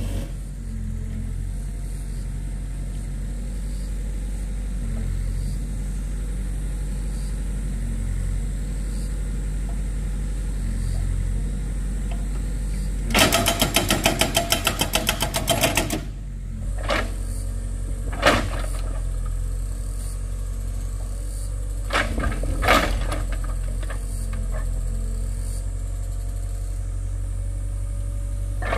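A steady low, engine-like hum. About halfway through, three seconds of fast, even mechanical rattling cut in, followed by a few sharp knocks.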